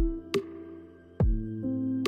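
Electronic background music: sustained synth notes over deep kick-drum thuds and a few sharp percussive hits.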